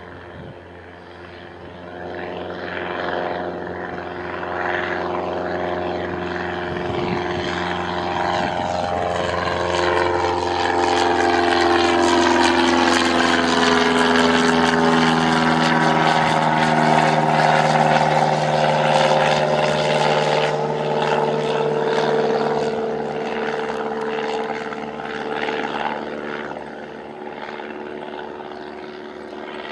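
Cessna 172 Skyhawk's piston engine and propeller climbing out after takeoff, growing louder as the plane approaches, dropping in pitch as it passes by around the middle, then fading as it flies away.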